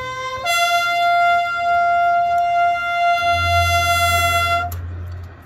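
Marching band field show music: a solo wind instrument steps up from a short lower note to one long, high held note that cuts off after about four seconds. A low rumble joins beneath the note in its second half.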